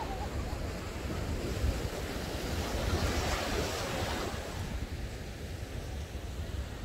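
Ocean surf breaking and washing up a sandy beach, with wind buffeting the microphone in a low rumble. The surf swells louder and hissier for a second or so about three seconds in.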